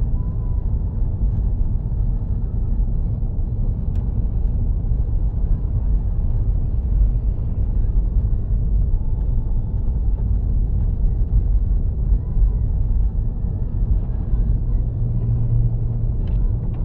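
Steady low rumble of a Subaru's engine and tyres on a snow-covered road, heard from inside the cabin, with a deeper hum swelling briefly near the end.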